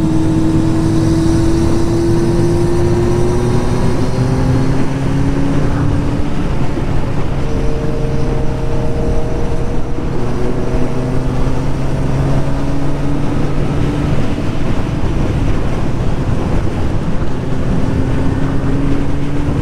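Kawasaki Z900's inline-four engine with a performance exhaust running hard at highway speed, its pitch climbing slowly and stepping back down a few times, over steady wind rush.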